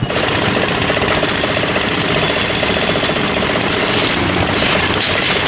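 Engine running steadily and loudly with a fast, even rhythm, cutting in suddenly at the start.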